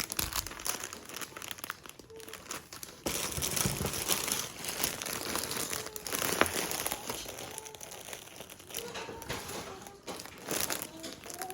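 Plastic wrapping crinkling and rustling as it is handled, on and off, with sharper crackles now and then.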